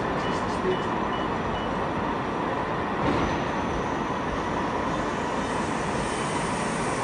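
Spindle of a Mori Seiki TL-40 CNC lathe coming up to speed and running its 250 mm power chuck with no cut being taken, a steady machine noise.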